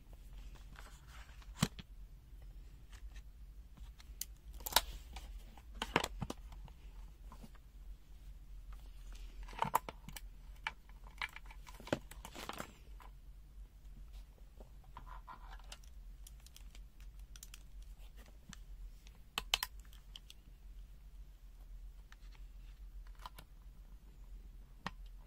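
Irregular clicks and short rattles of pocket multimeters and test leads being handled: the rotary selector is turned to AC volts and the probe tips are pushed into a mains socket. A steady low hum runs beneath.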